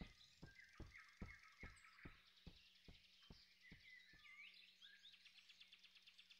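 Near silence: faint forest ambience with soft bird chirps and a run of quiet, evenly spaced ticks, about two and a half a second, that fade out.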